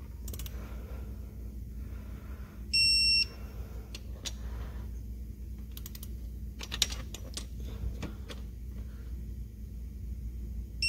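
Snap-on digital torque wrench giving one electronic beep of about half a second, about three seconds in, as a cam cap bolt reaches the 11 ft-lb set torque; another beep starts right at the end. In between, scattered clicks from the wrench's ratchet head and tool handling.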